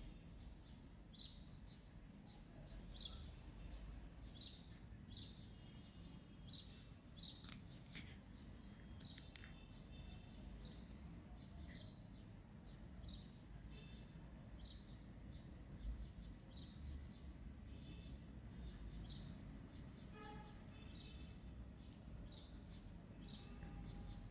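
Faint bird chirping: a short high chirp repeated roughly once a second, over a low background hum, with a couple of sharp clicks about a third of the way in.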